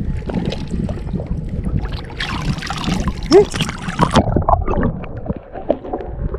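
Shallow seawater sloshing and splashing against a wading angler and his camera. About two seconds in there is a louder rush of splashing for roughly two seconds, then gurgling as the camera dips under the surface.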